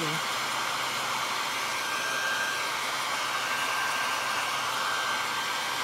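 Conair handheld hair dryer running steadily on its low setting, a constant rush of blown air with a thin high whine held throughout.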